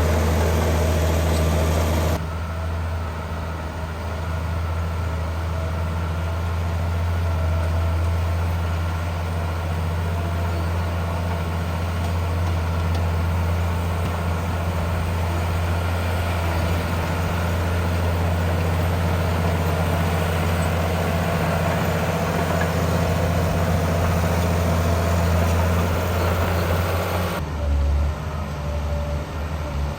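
Heavy diesel engine of earthmoving machinery running steadily with a low drone. The sound changes abruptly about two seconds in and again near the end.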